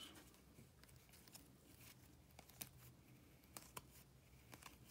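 Faint, irregular light clicks of 2019 Topps baseball cards being flipped one at a time through a hand-held stack, card edges slipping and snapping past each other.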